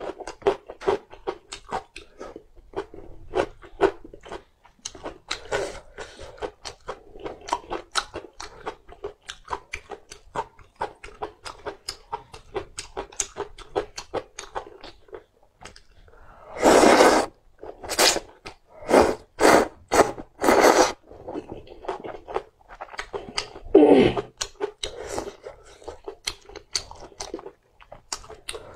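Close-miked chewing of thick hand-cut noodles, with many quick wet mouth smacks; about two-thirds through, a run of about six loud slurps as noodles are sucked in, and one more loud slurp near the end.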